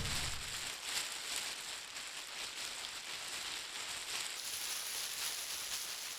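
A steady crackling hiss with fine clicks, heard as a low rumble fades out in the first second.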